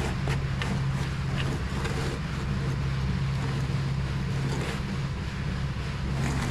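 Concrete truck's diesel engine running steadily at a constant speed, a low even hum under a wash of outdoor noise.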